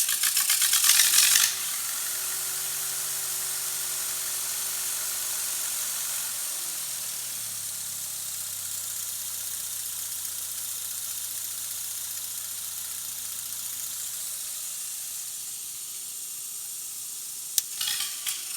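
Lincoln SA-200 welder's four-cylinder gasoline engine running on high idle, loud at first, then its speed steps down about six seconds in and its note dies away after about fourteen seconds, over a steady hiss. The owner blames a faulty carburettor for this behaviour: a loose butterfly shaft and a clogged main jet and filter. A few clicks near the end.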